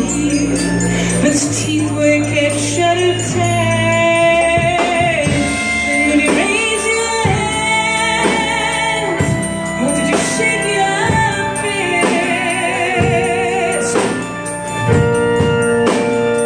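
A woman singing into a microphone with a live band playing behind her.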